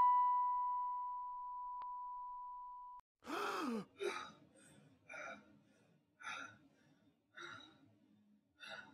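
A steady high electronic tone fades and cuts off abruptly about three seconds in. It is followed by a young man's sharp, loud gasp, then five heavy breaths about a second apart.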